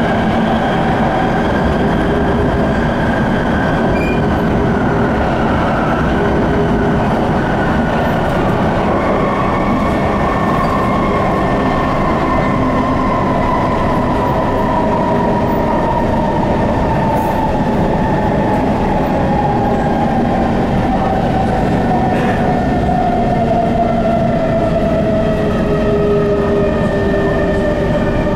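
SMRT C151 metro train heard from inside the carriage as it runs between stations. A steady rumble of wheels on the rails carries the traction motors' whine. Through the second half the whine falls slowly and steadily in pitch as the train loses speed.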